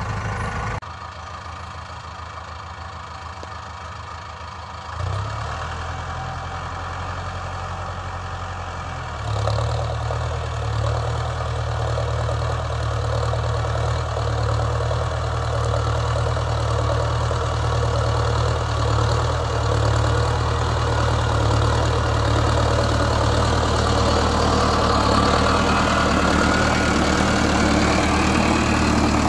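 Mahindra Arjun Novo 605 DI-i tractor's diesel engine running steadily under load while pulling a cultivator through the field. The sound steps down about a second in and comes up louder about a third of the way through.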